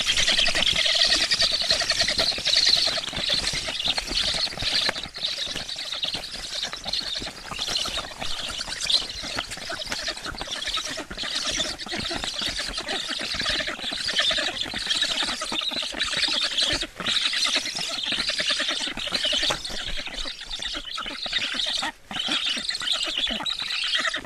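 Black stork chicks begging for food, a continuous chorus of rapid, high-pitched calls as the adult feeds them on the nest.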